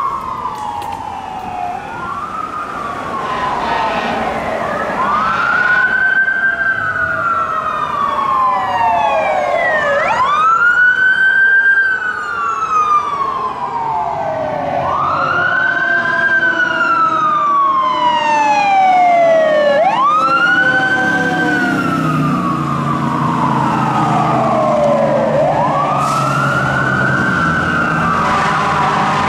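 Emergency-vehicle sirens of a responding fire engine and rescue ambulance wailing: each cycle rises quickly and falls slowly, about every five seconds, with a second siren overlapping. A heavy engine's low drone builds in the second half as the apparatus comes close.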